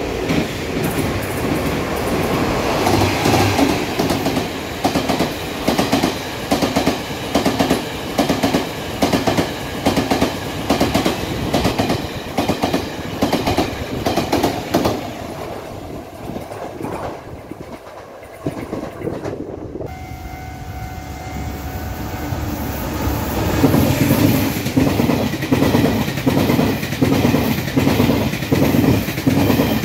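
Taiwan Railway push-pull express trains passing at speed, their wheels clicking in a steady clickety-clack over rail joints. About two-thirds of the way through it cuts to a second train, with steady tones at first, then the clatter building as it comes close.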